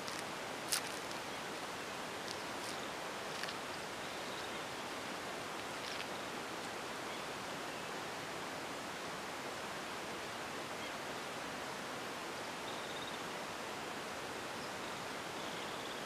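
Steady, even outdoor hiss of open-air ambience, with a few brief faint ticks in the first few seconds and a couple of faint high chirps near the end.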